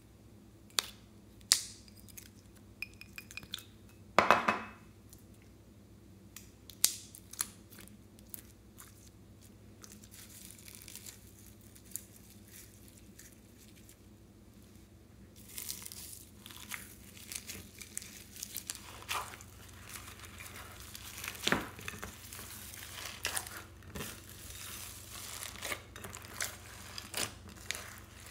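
Glossy slime being stretched, folded and kneaded with foam beads and sprinkles in a glass dish. A few separate sharp clicks and taps come first, then from about halfway the sound turns to steady crackling and popping as the beads are squeezed in the slime.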